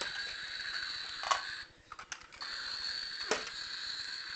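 Plastic toy pieces being handled, knocking sharply twice with a few lighter clicks, over a steady high-pitched hum that breaks off briefly about halfway through.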